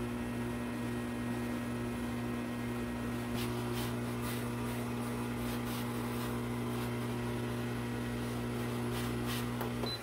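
Homerunpet pet blow dryer running steadily: an even motor hum over the rush of air from its hose as it blows on a dog's coat. It cuts off right at the end.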